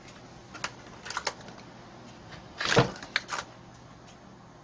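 Scattered light clicks and knocks of hands and a tool handling a brush cutter's engine, around its loosened ignition coil, with one louder, slightly longer rattling knock just under three seconds in.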